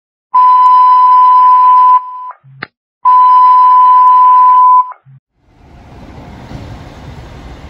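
Two loud, steady electronic beeps at one high pitch, each nearly two seconds long with about a second between them. From about five seconds in, a low vehicle and street rumble builds up.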